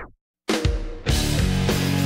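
Music with a brief dropout: a falling sweep cuts to silence, then a sudden hit at about half a second, and rock music with guitar and drums comes in about a second in.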